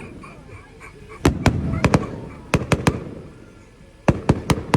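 Fireworks going off: groups of sharp bangs, each with a rolling echo. There are three about a second in, three more around the middle and three near the end.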